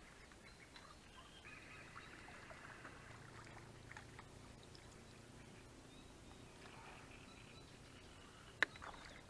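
Faint outdoor ambience with light handling noises from a feeder rod and reel, and a single sharp click near the end.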